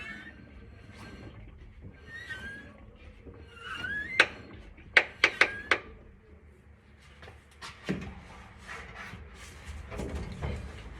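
Sharp mechanical clicks from a car's transmission: a single click about four seconds in, then a quick run of four about a second later, and fainter irregular clicks after that. Short chirping squeaks come in between the first few seconds.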